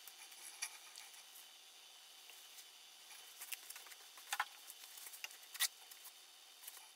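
Faint, scattered clicks and spritzes of a hand trigger spray bottle spraying a wooden bowl, with a paper towel wiping it near the end.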